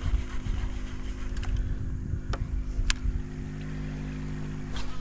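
A steady low motor hum on a small fishing boat, over a low rumble of wind and water, with a few sharp clicks scattered through.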